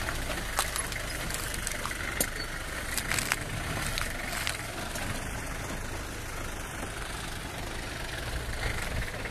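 An SUV's engine running at low revs as it crawls over rocky ground, with occasional short crunches and clicks of stones under the tyres.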